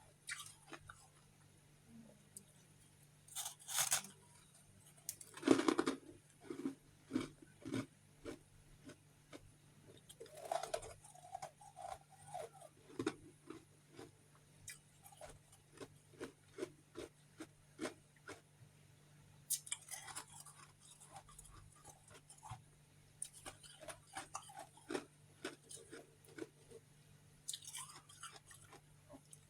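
Someone biting into and chewing chunks of refrozen freezer frost close to the microphone: sharp icy crunches at each bite, the loudest about five and a half seconds in, followed by runs of rapid, regular chewing crunches.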